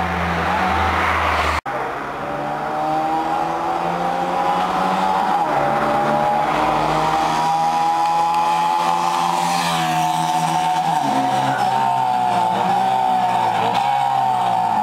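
Honda CB125 cafe racer motorcycle engine running at high revs, its pitch gliding slowly and dipping around ten seconds in, with a brief cut-out of the sound near the start.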